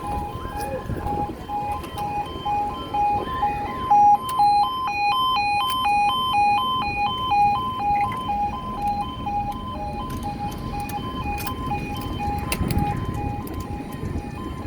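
UK level crossing alarms sounding: a warbling two-tone alarm alternates rapidly between two pitches throughout, and a second alarm with a different rhythm joins in and is loudest from about four to nine seconds in.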